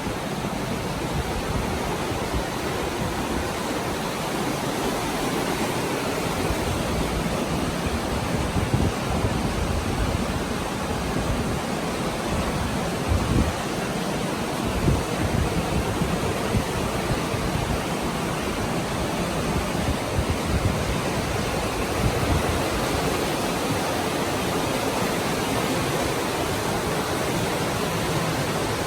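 Steady rushing of water, like a stream running through a cave.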